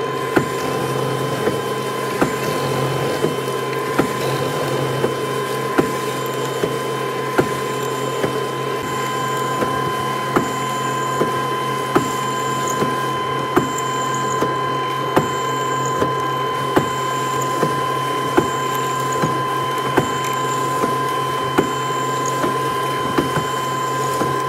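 Mortising machine running with a steady motor hum, its chisel repeatedly plunging into a hardwood door board to cut a long mortise, with a sharp knock about every three-quarters of a second.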